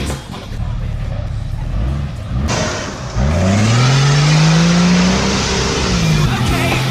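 Off-road 4x4's engine revving: the pitch climbs steadily for about two seconds, holds, then drops back near the end to a steady lower run.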